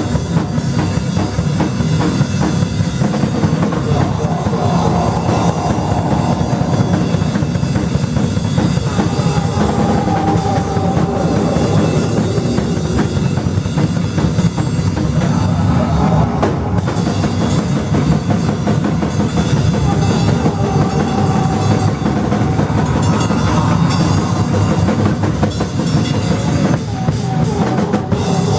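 Loud live band music driven by a drum kit played fast and dense, the hits coming in a rapid continuous stream.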